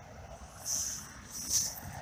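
Faint rustling of jacket fabric brushing close to the microphone as the camera is handled, in two short swells about a second apart.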